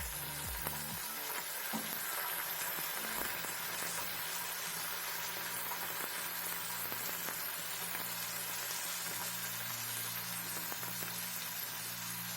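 Onions and seasoning frying in hot oil in a pan, a steady sizzle with a few light clicks of the stirring spoon. Soft background music with low held notes plays under it from about a second in.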